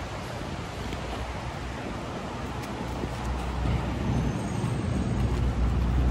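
Low wind rumble on the microphone of a moving bicycle, with street traffic noise in the background; the rumble grows louder in the last couple of seconds.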